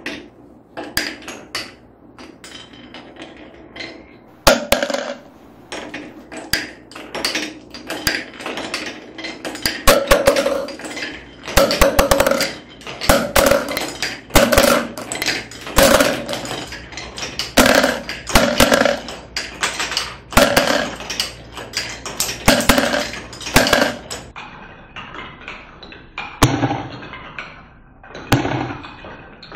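Glass marbles clattering down a wooden marble run: a quick series of sharp knocks and clicks as they drop through wooden block chutes and zigzag ramps. The knocks come thickest midway, then thin out to a few duller knocks near the end as the marbles roll along the curved wooden track.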